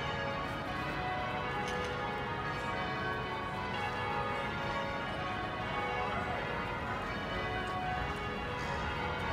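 Church bells ringing, many bells sounding and overlapping at once, over steady street noise.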